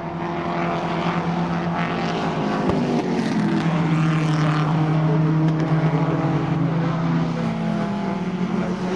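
Historic Group A and Group C touring car engines racing past on a circuit, one car after another; the engine notes hold steady, then drop in pitch as cars go by or lift off for a corner, twice.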